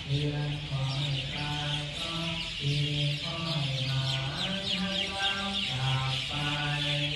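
Buddhist chanting, low voices holding a few steady pitches that step up and down every second or so, under the continuous chirping of a great many birds.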